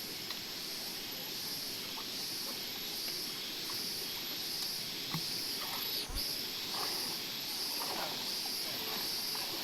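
Rainforest insect chorus: a steady high-pitched buzz with a higher layer pulsing about one and a half times a second, and faint scattered ticks.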